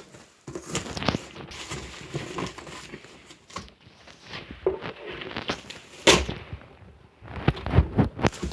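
A large cardboard box and its packing being pulled open and handled: irregular crinkling, rustling and crackling, with a few louder knocks, the loudest about six seconds in and a quick cluster near the end.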